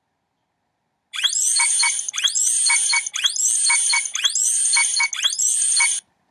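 Bright electronic intro jingle that starts about a second in: a short chiming phrase opening with a rising sweep, repeated a little faster than once a second, like a ringtone, then cutting off suddenly near the end.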